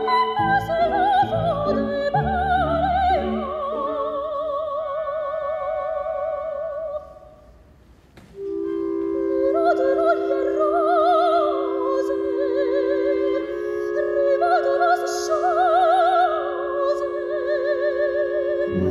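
An operatic soprano sings a lyrical line with wide vibrato over orchestral accompaniment. About seven seconds in, voice and orchestra fall nearly silent for about a second. She then resumes over a long held orchestral chord.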